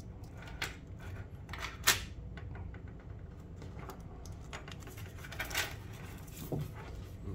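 Scattered small metallic clicks and taps as a stainless steel watch band and its loose pins are handled and set down on a wooden tabletop, with a sharp click about two seconds in.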